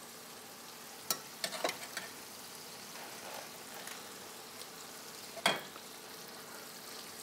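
Tomato sauce with onion and smoked pork belly sizzling steadily in an enamelled pan on a gas burner as white beans are tipped in and stirred with a wooden spatula. A few light clicks and knocks of the spoon and spatula against the pan, the sharpest about five and a half seconds in.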